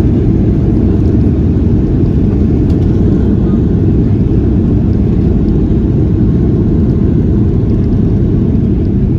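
Steady, loud low rumble of a Boeing 737-800's CFM56 engines and airflow, heard inside the passenger cabin.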